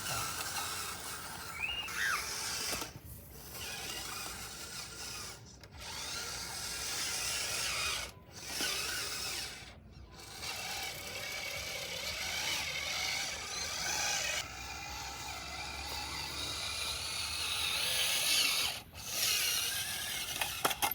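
Small electric motors and gears whirring in stretches, broken by several brief pauses.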